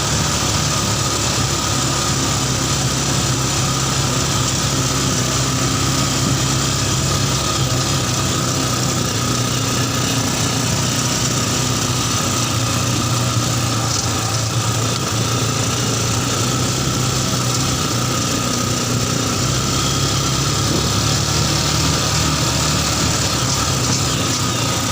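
Yamaha Scorpio Z single-cylinder motorcycle engine in a mini buggy running steadily, its pitch and loudness nearly unchanged throughout.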